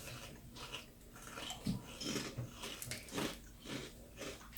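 Someone crunching and chewing shrimp crackers, short crisp crunches coming every half second or so.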